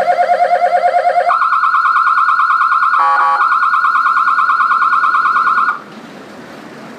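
Electronic emergency siren switching between modes: a fast-pulsing low tone jumps to a higher fast-pulsing tone just over a second in, with a brief break of stepped tones around three seconds in. It cuts off suddenly a little before the end, leaving only faint background noise.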